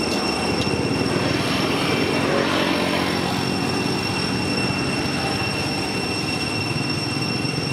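Steady outdoor background noise with a constant high-pitched whine over it; no monkey calls stand out.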